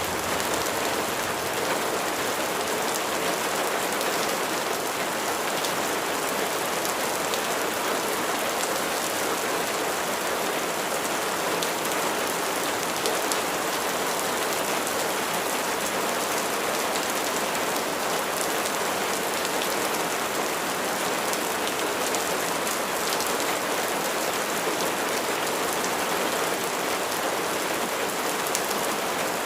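Steady rain falling and pattering on surfaces, an even wash of noise with fine drop ticks and no break in intensity.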